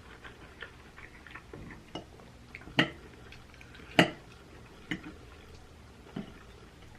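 A person eating: quiet chewing and mouth sounds with a string of short sharp clicks, the two loudest about three and four seconds in, like a fork against a bowl.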